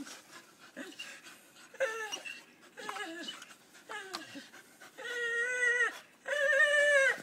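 Staffordshire bull terrier whining in play: several short whines that drop in pitch, then two longer, louder held whines in the last two seconds.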